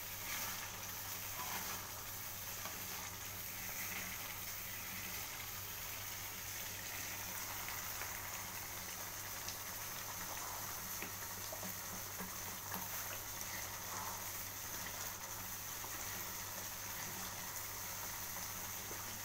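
Thick chili sambal bubbling and spitting steadily as it cooks down in a pan, still driving off its water, with a spoon stirring through it now and then. A steady low hum runs underneath.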